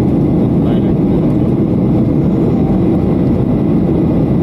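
Steady, even noise of an airliner's engines and rushing air, heard inside the passenger cabin.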